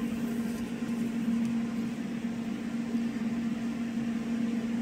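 Steady machine hum, a low even tone over a fan-like hiss, from shop equipment running continuously.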